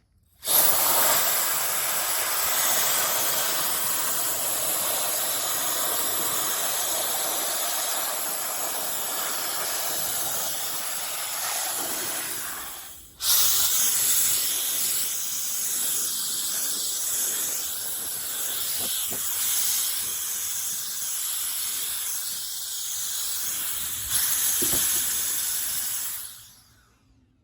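Cordless electric air duster running: a loud rushing hiss of blown air with a high motor whine. It cuts out briefly about halfway and starts again, runs louder for a couple of seconds near the end, then switches off.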